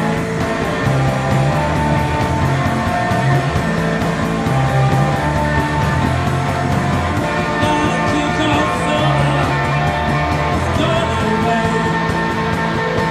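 Rock band playing a song in a live recording, guitar-driven.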